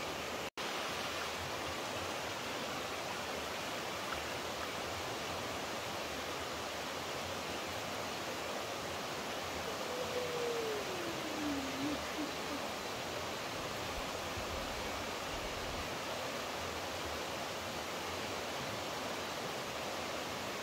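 Steady rush of running water, like a stream or small waterfall. About ten seconds in, a single whistle-like note slides downward over a second or two. The sound cuts out for an instant near the start.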